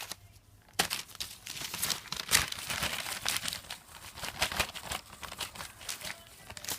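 Paper crinkling and rustling in irregular crackly bursts as a cat bats and pounces on it, starting about a second in and thinning out near the end.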